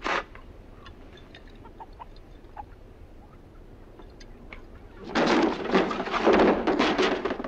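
Chickens clucking and cackling loudly for about two seconds, starting about five seconds in. Before that come a short sharp noise at the very start and a few faint clicks.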